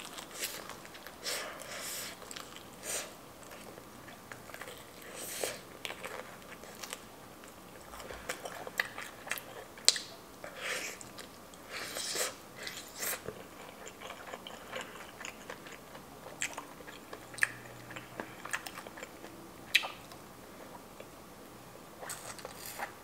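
A person biting into and chewing crispy fried chicken, with irregular crunches and sharp clicks at uneven intervals.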